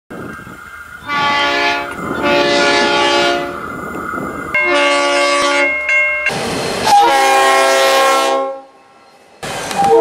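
Diesel locomotive air horns sounding multi-note chords: a short blast and a longer one, then further long blasts from different horns in quick succession. A short quiet gap near the end comes before another horn starts.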